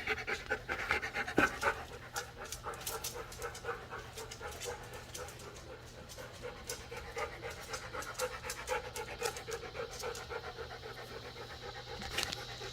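A dog panting quickly and steadily, close to the microphone.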